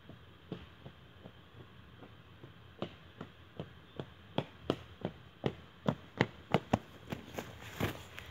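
Footsteps of a person walking on a dirt and stone track toward the microphone, a steady pace of roughly three steps a second, faint at first and growing louder as he comes closer.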